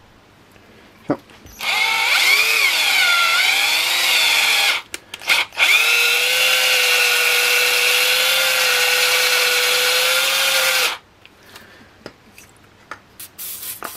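Parkside cordless drill running, spinning a small model-engine part in its chuck while it is worked smooth by hand. It runs in two spells: the first a few seconds long with the motor speed dipping and rising under the trigger, then after a short stop with a couple of clicks, a steady run of about five seconds that cuts off suddenly, followed by light handling clicks.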